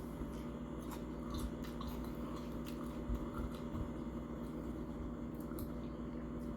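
Chewing mini tacos close to the microphone: scattered short crunches and mouth clicks over a steady low hum.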